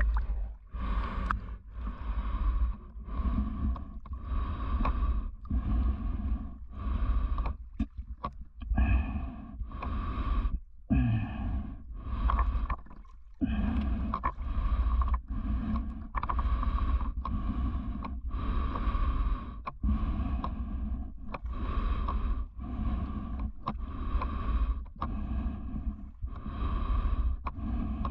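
Rhythmic swimming sounds close to a full-face snorkel mask: heavy breathing through the mask's built-in snorkel mixed with water sloshing and rumbling against the mask and camera, about one and a half surges a second.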